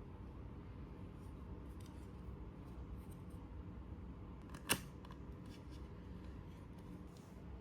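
Faint handling of plastic snap-fit model-kit parts with light ticks, and one sharp click a little past halfway through.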